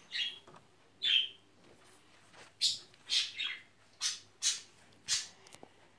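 A small bird chirping and squawking, about a dozen short, high calls that come faster in the second half.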